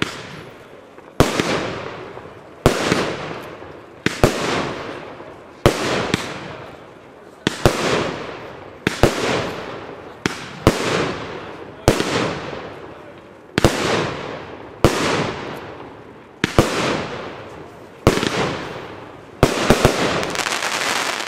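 Royal Fireworks 'Magicians' firework cake firing shot after shot, a sharp bang about every one and a half seconds, each trailing off over about a second. Near the end a few bangs come in quick succession.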